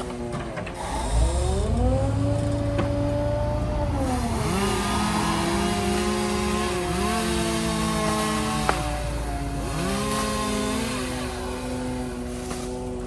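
An engine running with its pitch dropping and climbing back several times, as it is throttled up and down or loaded and unloaded.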